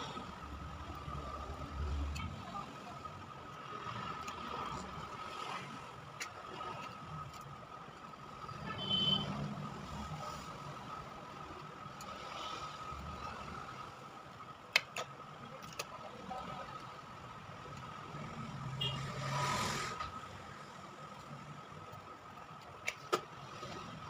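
Steady low background hum with a faint constant whine, broken by a few light clicks and taps of metal tools against a phone's circuit board, sharpest near the middle and near the end.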